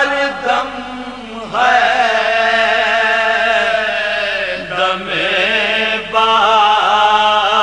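A man's voice chanting a marsia, an Urdu elegy, in the melodic soz style: long held notes with a wavering pitch, with short breaths about a second in and again around five and six seconds in.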